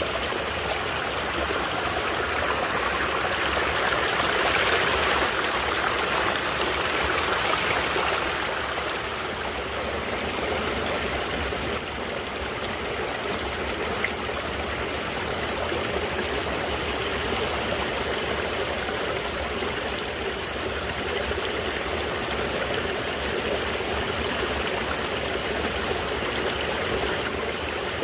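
Mountain creek flowing steadily over rocks, a continuous rushing and trickling that swells for a few seconds early on, with one faint click about halfway through.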